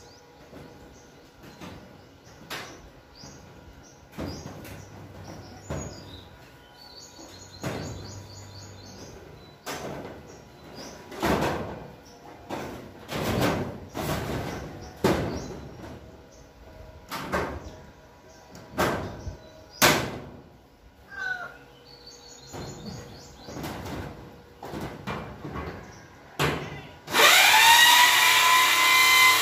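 Irregular knocks and thumps on the steel roof frame and corrugated sheeting. Near the end a power drill starts, spins up quickly and runs steadily at high speed, driving a self-drilling Tex screw into the steel C-purlin.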